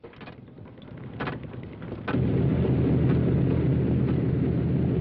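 A few knocks, then about two seconds in a heavy machinery engine starts running loud and steady with a low drone.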